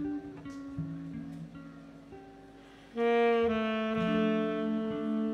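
Jazz ensemble playing: a hollow-body electric guitar picks soft single notes, then about three seconds in the horns, saxophones and brass, come in loudly together on held notes.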